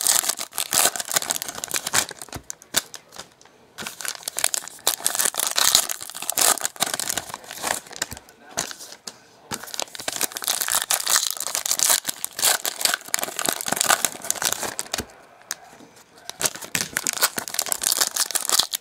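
Foil trading-card pack wrappers crinkling and tearing as packs are opened by hand, in several spells with brief pauses between them.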